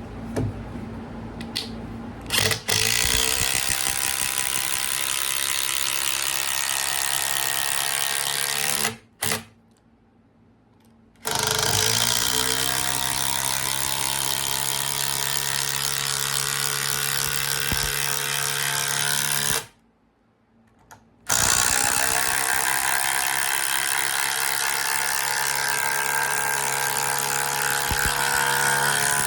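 Power driver sinking 6-inch HeadLok screws into wood, running in three long stretches of several seconds each with short pauses between, after a few brief bursts at the start.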